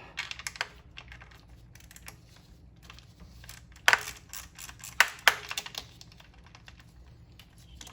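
Hand ratchet and socket clicking in quick, irregular runs while backing out the small fuel-rail fasteners threaded into plastic on an LS2 V8, with three sharper metal knocks about four and five seconds in.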